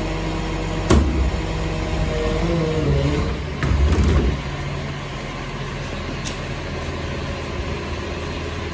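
Rear-loader garbage truck's engine and hydraulics running steadily while the compactor cycles through the rear hopper. A sharp knock comes about a second in, then a short whine that bends in pitch and a louder clattering stretch around the middle, before the drone settles.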